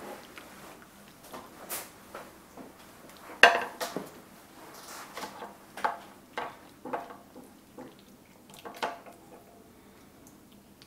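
Serving ladle clinking and scraping against a crockpot's stoneware insert and a plate as food is dished out: irregular knocks, the loudest about three and a half seconds in.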